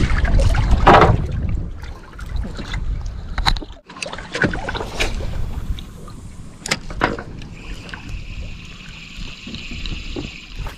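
Low wind and water rumble on a small fishing boat, with scattered sharp knocks. From about three quarters of the way in comes the steady high whir of a spinning reel (Shimano Stradic FL1000HG) being cranked, retrieving the lure.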